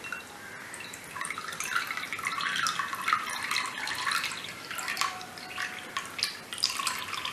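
Ginger-infused water poured through a strainer into a glass of hot water: a trickling, splashing pour that starts about a second in.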